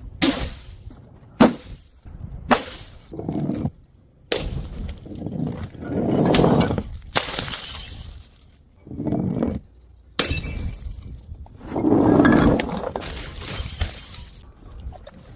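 Glass bottles shattering on stairs: three sharp smashes in the first few seconds, then longer spells of breaking and scattering glass.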